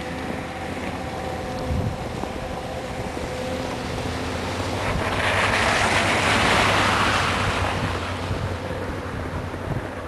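Blizzard wind blowing across the microphone as a steady rush, with a louder swell about halfway through that fades again.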